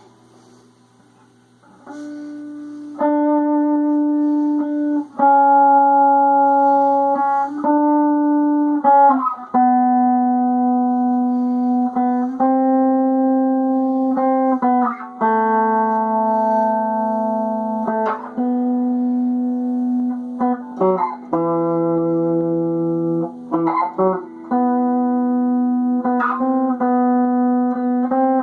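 Instrumental music: a slow line of long, steady held notes, sometimes two at once, changing every one to three seconds. It begins about two seconds in and gets louder about three seconds in.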